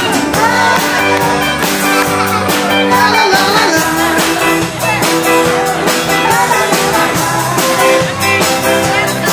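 Loud dance music with a steady beat and singing.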